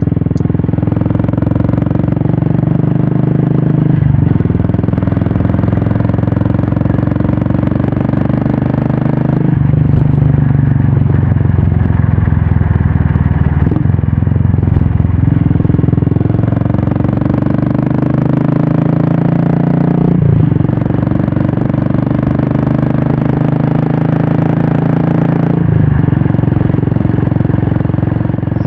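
Royal Enfield Classic 350's carburetted single-cylinder engine running through a Red Rooster stainless-steel aftermarket exhaust while being ridden. The exhaust note holds steady for a few seconds at a time, then steps to a new pitch about five times.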